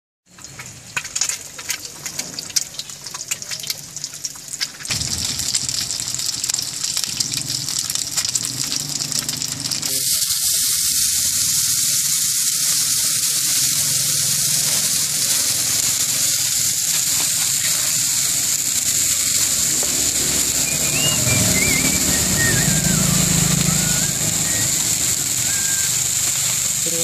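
Oil sizzling in a wide steel wok: an egg frying with crackling spatter. About ten seconds in, a louder steady hiss takes over as bean sprouts fry in the hot oil.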